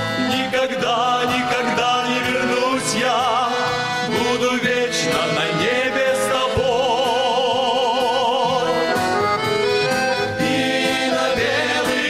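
A men's vocal ensemble singing a Russian Christian song with vibrato, over instrumental accompaniment.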